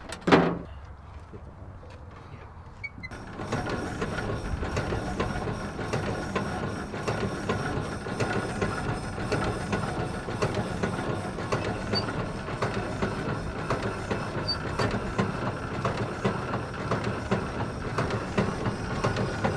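A thump just after the start. Then, about three seconds in, the 1926 Dodge Brothers four-cylinder engine begins turning over with a rapid, even mechanical clatter that holds steady.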